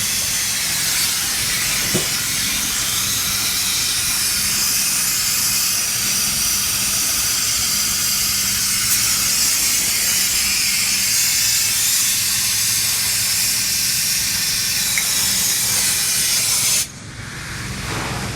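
Bitzer two-stage semi-hermetic refrigeration compressor unit running: a loud, steady hiss over a low, even hum. The level drops suddenly near the end.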